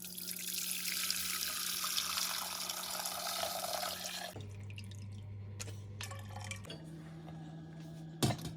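Ginger lemon tea being poured through a strainer: a steady stream of liquid for about four seconds, then thinning to a trickle and drips, with a short clunk near the end, over a low steady hum.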